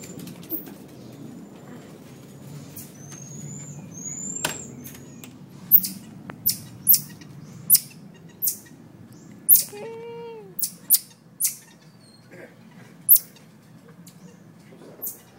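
Marmosets calling: a few short high whistled chirps in the first seconds, then a string of loud, sharp, very high-pitched chirps, irregularly spaced about half a second to a second apart, from about five to thirteen seconds in.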